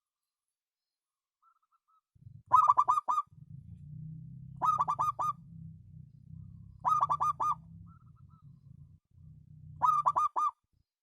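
Zebra dove (perkutut) singing: four phrases a few seconds apart, each a quick run of four or five staccato cooing notes. A faint low rumble runs beneath the song.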